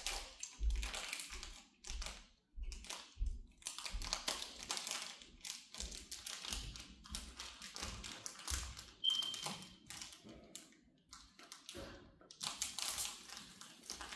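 Foil wrapper being crinkled and peeled open by hand: irregular crackling and rustling with light taps.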